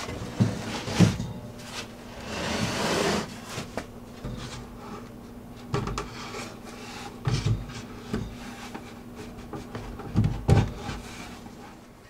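Wooden beehive boxes being handled and shifted on a wooden stand: a series of irregular wooden knocks and thumps, with a scraping slide about two to three seconds in. A faint steady hum runs underneath.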